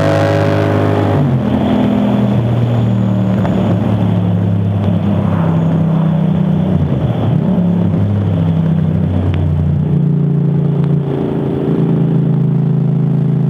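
Yamaha MT-07 parallel-twin motorcycle with an Akrapovic exhaust riding a winding road, its engine note stepping up and down in pitch as the rider works the throttle and gears, with a sharp drop about a second in.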